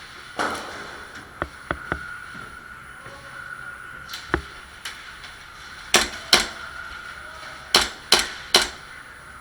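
Airsoft guns firing in close-quarters play: a few light clicks early, then two sharp shots about six seconds in and three more in quick succession near the end.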